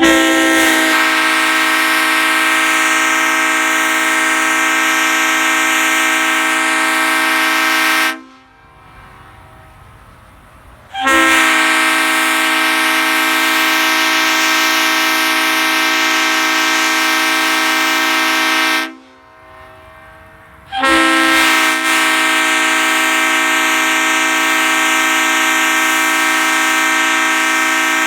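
Leslie RS5T five-chime locomotive air horn in CSX paint, bells 25, 31, 37, 44 and 55 with the 44 and 55 reversed (RRO), sounding its chord in long steady blasts of about eight seconds each. Two full blasts come with short gaps between them, and a third starts about twenty seconds in. Its owner judges it close to, but not quite at, full power, the paint-sealed bells perhaps needing a clean.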